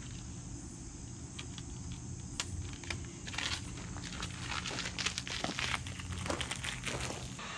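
Chrome vinyl wrap film crinkling and crackling as it is handled and smoothed by hand, in many short rustles and clicks that thicken from a couple of seconds in, followed by footsteps on gravel, over a steady low hum.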